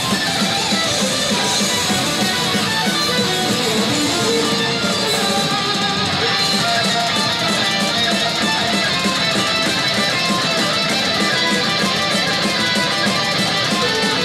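Single-cut electric guitar playing a lead solo: a continuous run of picked notes at an even, loud level.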